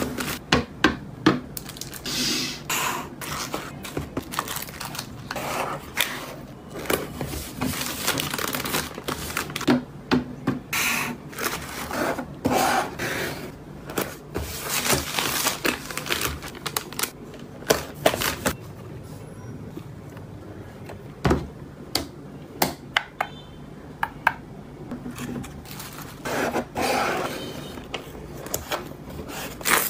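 Hands packing parcels: a plastic poly mailer rustling as it is folded, and fingers scraping across and tapping on a kraft cardboard box while smoothing on a label and a sticker, with many short sharp taps and clicks throughout.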